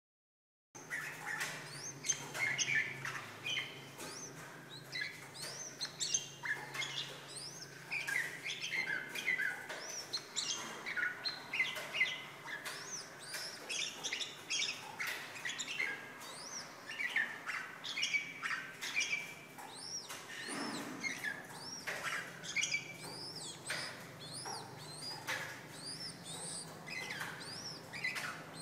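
Caged male red-whiskered bulbul singing during its wing-spreading courtship display: a busy, unbroken stream of short chirps and quick rising-and-falling whistled notes, with occasional clicks. It starts after a brief silence about a second in.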